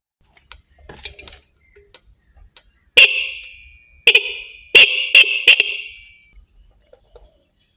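Motorbike electric horn tested after adjustment, sounding in short beeps: a few faint blips, then five loud toots from about three seconds in, each cut off and fading quickly.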